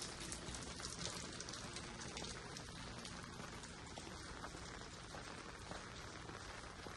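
Steady patter of water, a dense even hiss of many fine drops, a little louder in the first couple of seconds.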